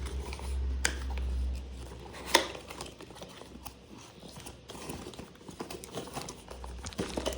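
Unboxing a beard trimmer's packaging: scattered light clicks and taps of cardboard and plastic being handled, with a sharper knock about two and a half seconds in.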